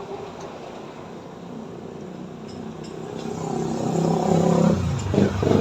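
A motor vehicle's engine growing louder as it approaches, with a quick drop and rise in pitch near the end.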